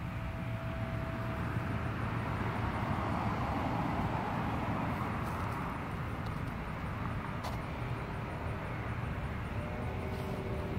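Outdoor background rumble that swells for a few seconds and fades again, as a vehicle passing at a distance does.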